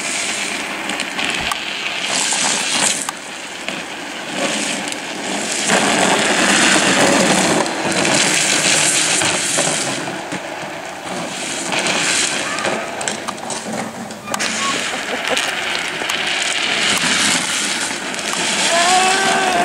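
Drift trikes' hard plastic rear wheels sliding sideways on asphalt: a rough scraping hiss that swells and fades as the riders slide through the bends.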